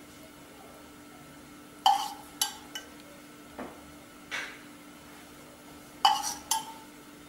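A small metal spoon clinking against a cast-iron paniyaram pan and its oil vessel while oil is spooned into the wells: a few sharp, briefly ringing clinks about two seconds in, a couple more around four seconds, and a quick group of three near six seconds.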